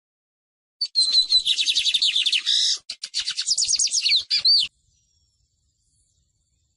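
A small songbird singing a fast, jumbled song of high whistled notes and quick downward slurs. It starts about a second in, breaks briefly midway and cuts off suddenly.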